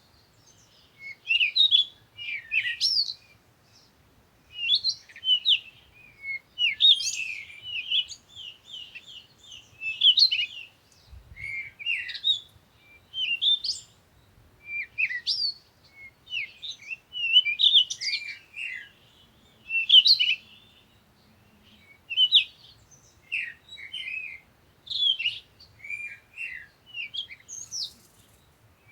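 Birds singing: short, high chirping phrases that repeat every second or two, with brief pauses between them.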